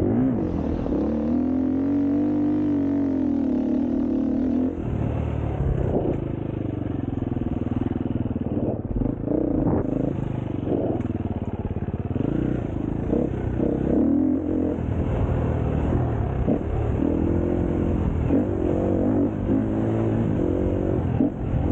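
An engine running and revving, its pitch rising and falling repeatedly.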